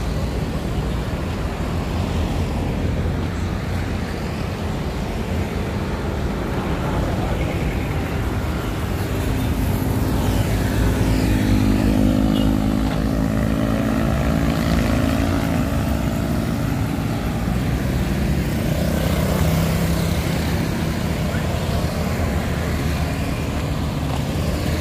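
Street traffic: motorbikes and cars passing on the road, with a louder engine going by about ten to fifteen seconds in.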